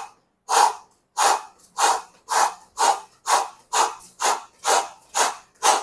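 A man's sharp, forceful exhalations in a steady rhythm of about two a second, one with each fast alternating knee drive toward the chest from a plank.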